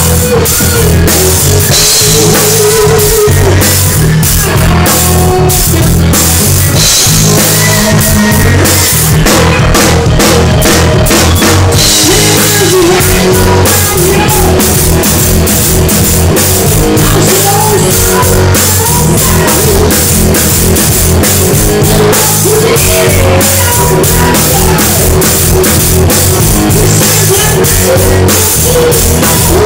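Heavy metal drumming played live on a full drum kit, heard close up and loud: a dense, unbroken run of bass drum, snare and cymbal hits with the rest of the band underneath.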